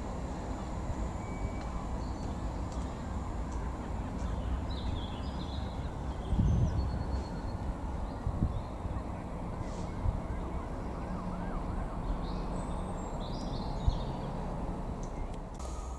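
Steady low outdoor rumble with scattered faint high chirps and small warbling glides over it.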